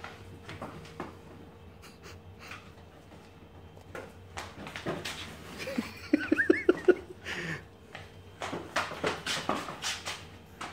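A dachshund playing with a cardboard box of aluminum foil on a hardwood floor: scattered knocks, clicks and rattles, with a cluster of short breathy sounds about six to seven seconds in.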